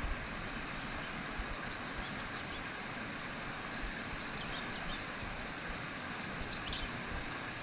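Steady rush of a fast-flowing river, with wind rumbling on the microphone. A few faint high chirps, likely birds, come through about four seconds in and again near the end.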